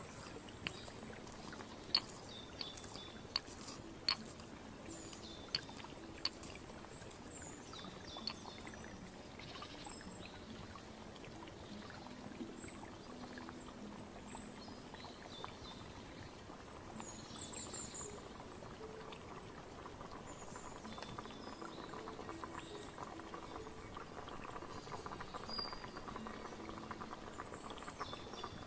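Water pouring and trickling steadily, with short high bird-like chirps here and there and a few sharp clicks in the first few seconds.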